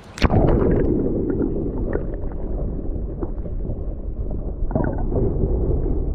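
A sharp splash about a quarter second in, then steady rushing and gurgling river water, heard muffled with scattered small clicks.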